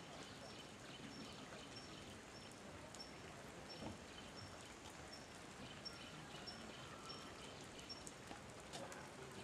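Faint light rain: a soft, even hiss with scattered small drip ticks, and a faint high chirp repeating about twice a second.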